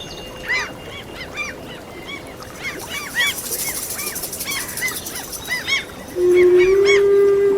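A flock of seagulls calling over and over in short arched cries. About six seconds in, a flute comes in loudly on long held notes.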